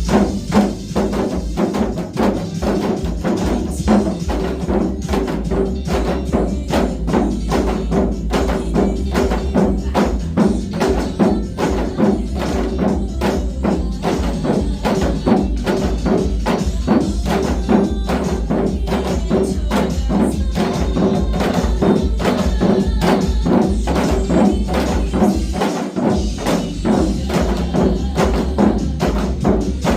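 Several janggu, Korean hourglass drums, struck with sticks in unison in the basic disco janggu rhythm, a fast, even stream of drum strokes over a recorded pop backing track.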